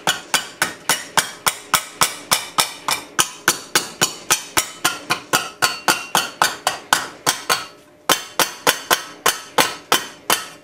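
Rubber mallet striking a sheet-metal strip wrapped over a 5-inch aluminum round bar held in a vise, bending the strip into a curve. The blows come steadily, about four a second, each with a short metallic ring, and pause briefly about eight seconds in.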